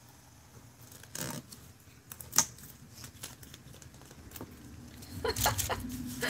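Handling noises at a craft work table: scattered clicks and rustles, with one sharp click about two and a half seconds in and a quick cluster of clicks and rattles near the end.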